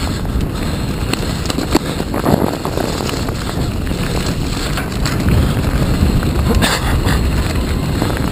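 Mountain bike riding fast over a rough, rocky forest trail: tyres rumbling and the bike rattling, with sharp clicks and knocks from the bumps. Wind buffets the microphone, and the rumble grows heavier about five seconds in.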